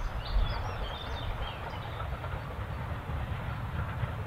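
Distant steam train with two locomotives running along the line: a steady rumble of engines and wheels on rail. Birds chirp over it in the first second or so.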